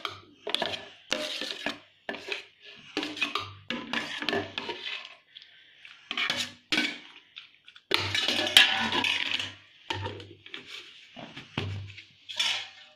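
Steel spoon scraping and clinking against a steel plate and mixer-grinder jar as roasted, mashed aubergine is scooped in: a series of short, irregular scrapes, with a longer, louder stretch past the middle.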